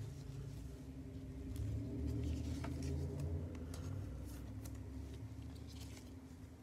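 Soft crackle of clear plastic wrapping and trading cards sliding against each other as gloved hands handle a stack of cards: many light scattered ticks over a low rumble of handling noise.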